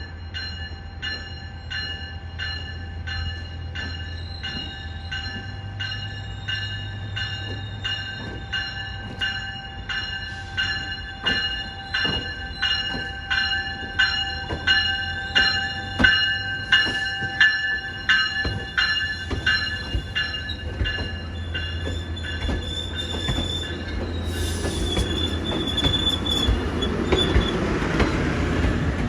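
A bell rings steadily about twice a second as a train nears; the strikes fade out after about twenty seconds while the train's rumble grows, with a high steady wheel squeal near the end.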